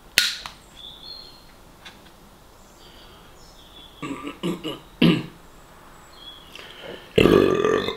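A man coughing and clearing his throat: a few short bursts about halfway through and a loud, harsh cough near the end. Just after the start a bottle is set down on the table with a sharp knock, and faint birds chirp in the background.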